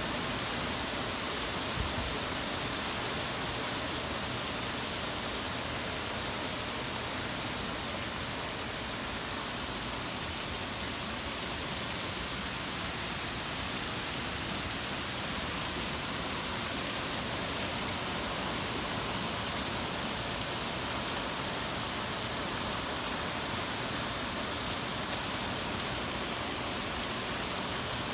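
Heavy, torrential rain pouring down: a steady, dense hiss that does not let up.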